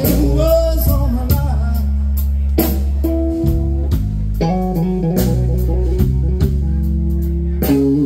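A live band playing: electric guitar lead over bass guitar and a drum kit, with the drums striking at a regular beat.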